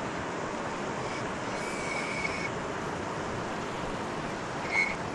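Steady rush of a shallow river flowing over stones, with a short high-pitched chirp near the end.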